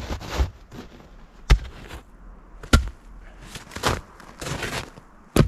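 Three sharp knocks, the first two about a second and a quarter apart and the last near the end, with softer scraping and shuffling between them: heavy chainsaw-milled pine boards being handled and set down.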